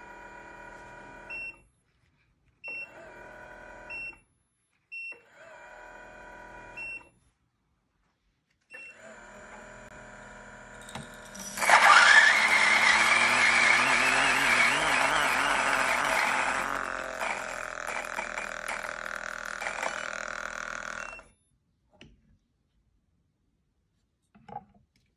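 Single-dose electric coffee grinder with 64 mm burrs. The motor runs in several short spells, each starting and ending with a short beep. About twelve seconds in, beans reach the burrs and it grinds loudly, growing quieter from about seventeen seconds as the last beans clear, and the motor stops about 21 seconds in; two light taps follow near the end.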